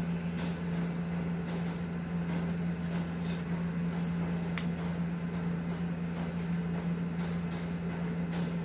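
A steady low hum over a faint hiss of room noise, with a few faint ticks.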